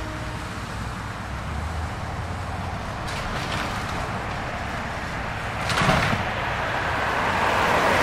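Excavator's diesel engine running steadily as it demolishes a house, with a sudden crash of breaking wreckage about six seconds in and the noise building toward the end.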